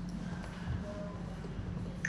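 Steady low hum of the studio's room tone, with one soft thump about three-quarters of a second in as clay is handled on the banding wheel.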